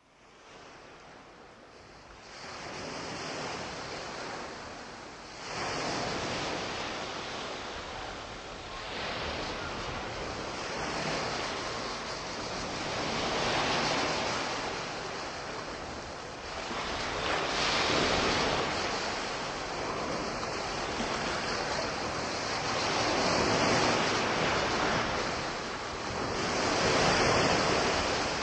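Sea waves breaking and washing up a shore, a new wave swelling and falling back every three seconds or so, fading in at the start.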